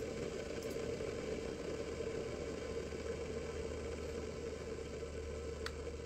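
Steady low mechanical hum and rumble, with a faint click near the end.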